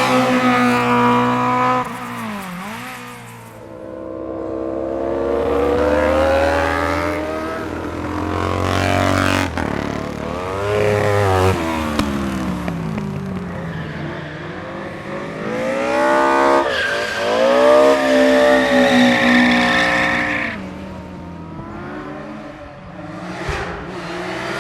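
Race car engine running hard up a hillclimb course, its pitch climbing through each gear and dropping at the shifts, swelling and fading as the car passes.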